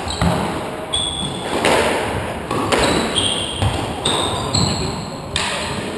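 Squash rally: the rubber ball smacking off rackets and the court walls about once a second, with short high squeaks from the players' shoes on the wooden floor between hits.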